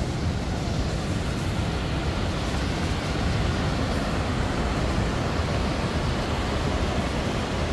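Steady rush of white water from the Youghiogheny River at Ohiopyle Falls: an even noise with no breaks.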